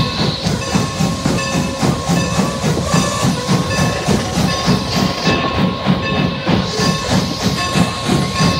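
Norfolk & Western J-class steam locomotive 611 standing with its machinery working: a steady fast chuffing beat, about four a second, over a hiss of steam and a constant whine.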